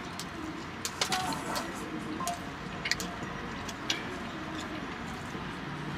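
Eating and drinking sounds: a milkshake sipped through a straw and a donut being chewed, with a few short sharp clicks and smacks over a steady low hum.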